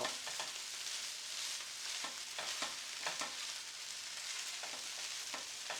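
Chicken fried rice sizzling steadily in a frying pan, with a few light clicks of a utensil against the pan.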